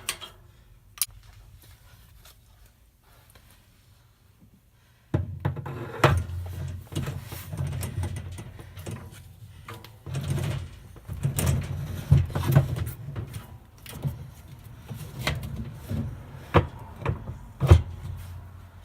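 Scattered clicks, knocks and clatter of tools and metal parts being handled on a washing machine, sparse at first and busier once a low steady hum starts suddenly about five seconds in.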